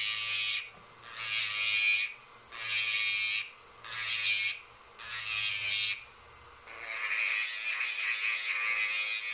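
Handheld rotary tool with a grinding-stone bit sanding the edge of a pine intarsia piece, rounding the square edge over. It runs in five short passes of about a second each, then one longer continuous pass from about seven seconds in.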